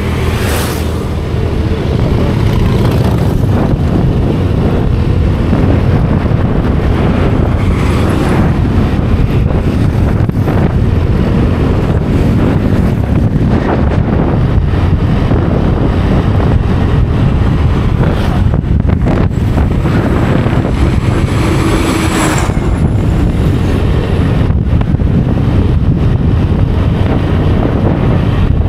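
Wind buffeting the microphone of a moving motor scooter, a loud steady rush over the scooter's engine and road noise. A brief louder swish near the start, as an oncoming van passes, and another about three-quarters of the way through.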